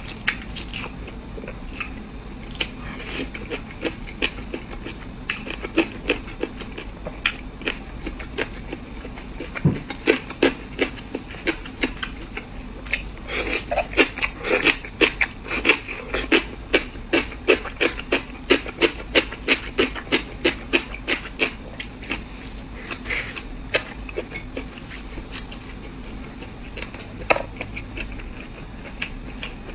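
Close-miked eating sounds: chewing and mouth smacks, most regular in the middle at about two a second.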